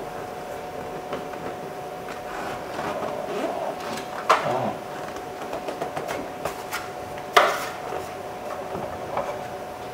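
Scattered clicks and knocks of hand work on a truck's plastic interior door panel and its screws, with two sharper knocks about four and seven seconds in.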